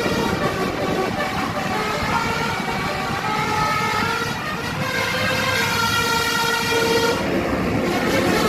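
Telolet bus horn, a multi-tone air horn, playing a melody note by note over the bus's low engine rumble.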